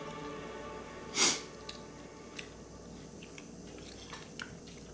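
A short, sharp breath through the nose about a second in, the loudest sound here, followed by a few faint clinks of a metal spoon against a ceramic plate, over quiet background music.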